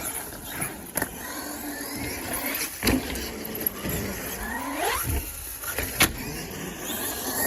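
Electric motors of RC monster trucks whining as they rev up and down, with a few sharp knocks.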